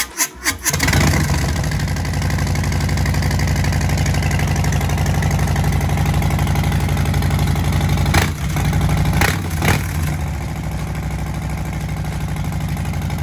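2020 Harley-Davidson Low Rider S's Milwaukee-Eight 114 V-twin with Bassani radial sweeper exhaust cranks, catches within about a second and idles steadily, with two quick throttle blips about eight and nine and a half seconds in. This is the first start after a Dynojet Power Commander V fuel tuner was fitted, a check that the bike runs properly.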